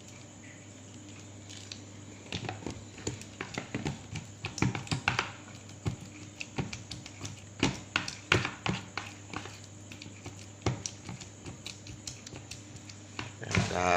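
A utensil clicking and tapping against a bowl in an irregular run, mixing mashed egg yolk and honey into a bait paste, starting about two seconds in. A low steady hum lies underneath.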